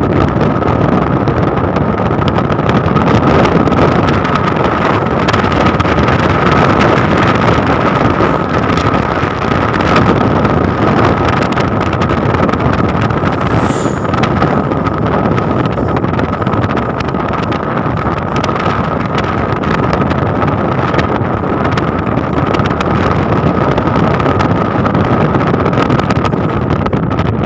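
Wind rushing over a phone microphone held out of a moving car's open window, mixed with steady road and tyre noise, loud and unbroken, with a steady high whine.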